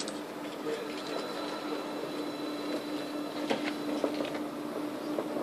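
OLEV wireless-powered electric tram rolling slowly in to stop, a steady hum with a faint high whine over it, and a few sharp clicks in between.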